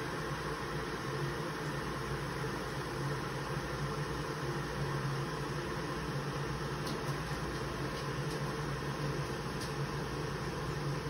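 Steady low hum under an even hiss, with a few faint high ticks about seven to ten seconds in.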